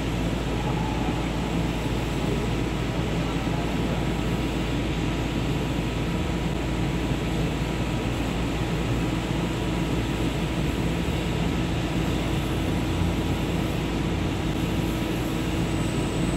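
CNC metal spinning machine running: a steady mechanical hum with a few constant tones held at an even pitch and level.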